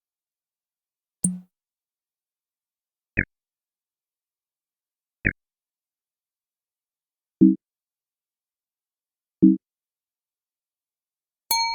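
Synthesized computer sound effects: five short electronic blips about two seconds apart, two of them higher-pitched and two low, then a ringing bell-like ding near the end.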